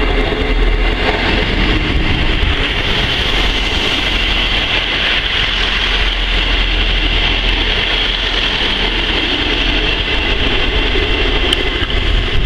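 Class 159 diesel multiple unit pulling away, its underfloor diesel engines running with wheels rolling on the rails: a loud, steady drone.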